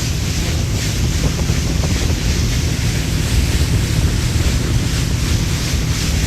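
Speedboat under way: a steady rush of engine and water with heavy wind buffeting on the microphone.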